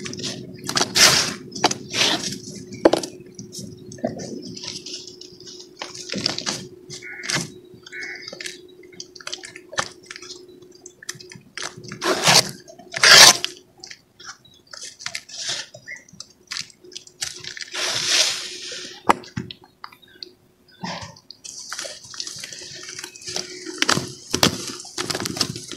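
Hands squeezing and kneading a lump of wet cement in a tub of cement-clouded water, giving irregular squelches, splashes and drips, a few of them louder.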